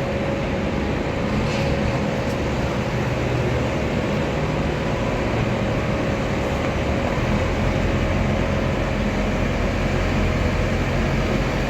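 Heavy diesel engine running steadily, a continuous low hum that grows fuller about seven seconds in.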